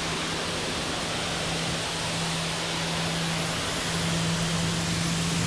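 RYOBI 1800 PSI electric pressure washer running, its motor and pump giving a steady low hum under the loud hiss of the high-pressure water jet spraying onto concrete.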